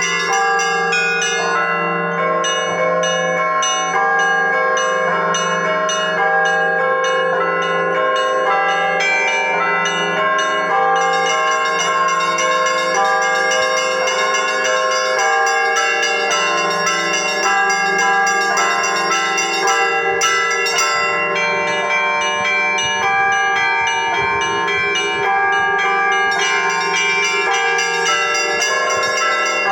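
Russian Orthodox church bells rung continuously: many bells struck in a fast, repeating pattern, with small high bells ringing over the steady hum of a deeper bell. The highest bells thin out for a few seconds about two-thirds of the way through.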